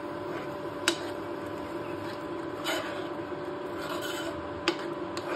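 A metal spoon stirring and scraping thick cooked oats around a nonstick pan, a steady rubbing scrape. Two sharp clicks come about a second in and near the end, over a constant low hum.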